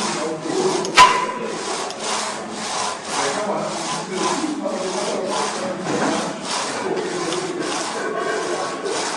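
Rhythmic rasping, rubbing strokes repeating about twice a second, with one sharp click about a second in.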